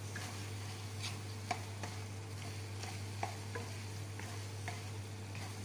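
Wooden spatula stirring and scraping a soft eggplant-and-egg mixture in a non-stick frying pan: irregular short clicks and scrapes, about one or two a second, over a low steady hum.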